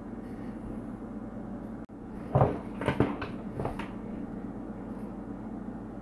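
A few light clicks and knocks of plastic RC truck parts handled and bumped together, about two seconds in and again over the next second and a half, over a steady low background hum.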